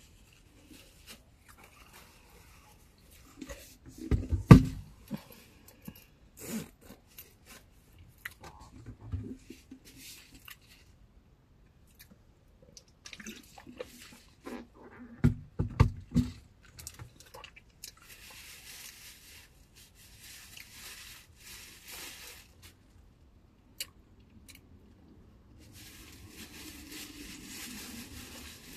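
Eating sounds: small clicks and taps of a utensil and chewing, with two loud bumps about four and fifteen seconds in, then stretches of rustling in the second half.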